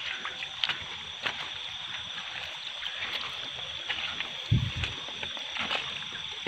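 Small rocky stream running steadily, with light splashes and knocks as a hand reaches into the water between the stones. A dull low thump about four and a half seconds in.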